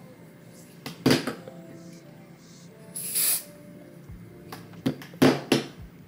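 Short hisses from an aerosol can of Ebin Wonder Lace spray, sprayed in two brief bursts about two seconds apart, then a few sharp clicks and knocks near the end. Faint background music underneath.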